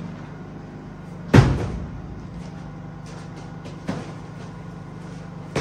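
A roll of plastic sheeting being handled and set down on a dirt floor: one heavy thump about a second and a half in, a lighter knock near four seconds, and faint plastic crinkling in between.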